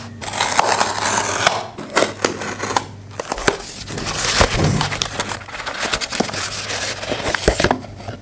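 Cardboard shipping box handled and opened by hand: scraping, rustling cardboard with many sharp clicks and snaps, coming in bursts with short pauses between.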